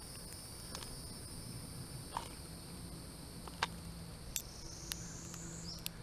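About six short, sharp clicks and taps of a male northern cardinal's beak cracking sunflower seeds at a feeder, over a steady high-pitched buzz of insects.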